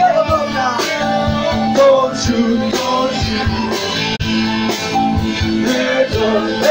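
Live band playing: electric guitars over a drum kit keeping a steady beat, with a melody line weaving above.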